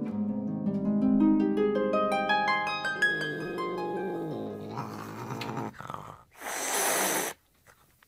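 Harp music of quick plucked arpeggios for about three seconds. Then two short, noisy animal sounds about a second apart, the second louder, as the cat stands in for the roaring lion of a film-studio logo.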